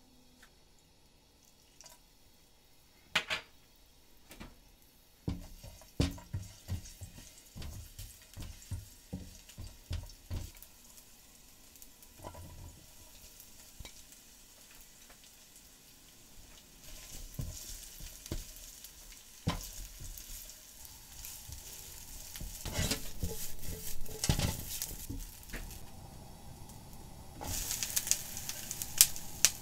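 Stir-frying in a nonstick frying pan: a slotted spatula knocks and scrapes against the pan while sliced chikuwa fries in oil, and the sizzle builds through the middle. Near the end a louder, brighter sizzle comes as bean sprouts go into the hot pan.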